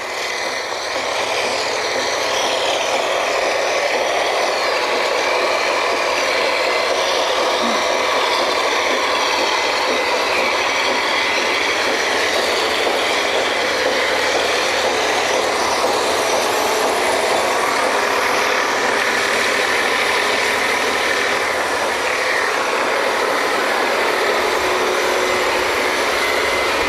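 Loud, steady running din of an oil-well drilling rig's heavy machinery (its engines and pumps), with no change through the stretch.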